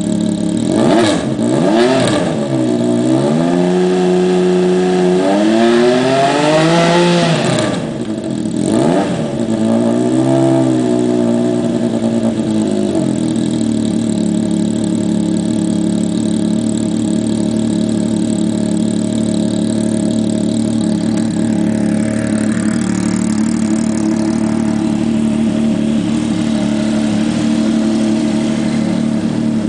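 Yamaha snowmobile engine converted for a gyroplane, revved up and back down several times in the first dozen seconds, then settling into a steady idle.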